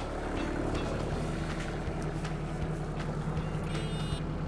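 JCB mini excavator's diesel engine running steadily, its low hum growing slightly stronger about a second in.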